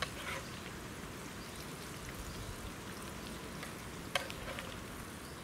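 Eggs frying in a pan, a steady sizzle, with a sharp metal clink about four seconds in as the food is served from the pan.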